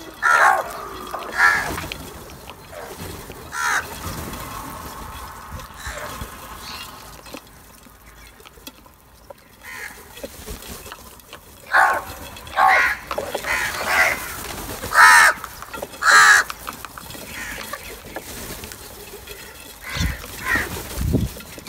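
A flock of house crows cawing: harsh calls in scattered clusters, a few near the start and a run of loud ones about halfway through. A couple of low thumps near the end.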